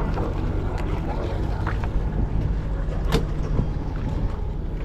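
A fishing boat's engine running steadily with a low hum, and a single sharp click about three seconds in.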